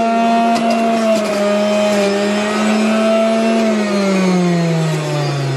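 Magic Bullet Mini Juicer's motor running at speed with a steady high hum. About two-thirds of the way through, its pitch falls steadily lower as the motor slows.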